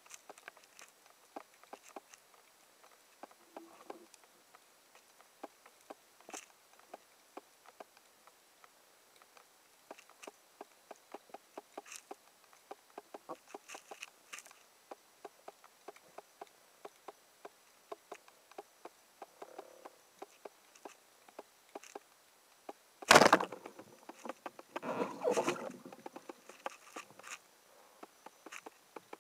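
Underwater, a constant crackle of scattered clicks. About 23 seconds in, a band-powered speargun fires with one loud sharp snap, followed about two seconds later by a short burst of rattling, scraping noise.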